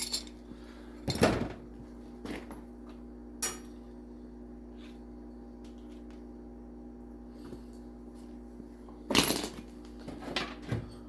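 A few scattered clunks and knocks of metal parts and hand tools being handled during a snowblower chute cable repair, loudest about a second in and again about nine seconds in, over a steady low hum.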